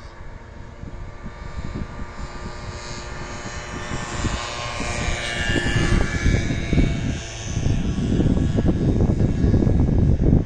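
Wind buffeting the microphone, growing stronger in the second half, over a steady distant engine drone that swells around the middle.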